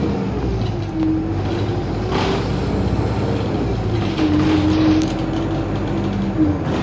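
Bus engine and drivetrain running, heard from inside the passenger cabin, with a whining tone that slides down, holds and rises again as the bus moves. A short hiss comes about two seconds in.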